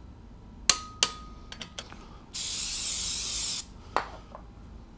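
Two sharp metallic clicks about a third of a second apart, one leaving a brief ring, from a torque wrench on the flywheel bolts being brought to 66 foot-pounds. Then an aerosol spray can gives one steady hiss of just over a second, followed by a single knock.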